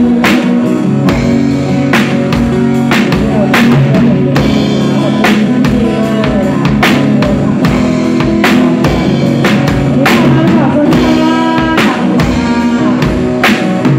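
A drum kit played live with a band: regular drum and cymbal hits over sustained bass and other held pitched tones.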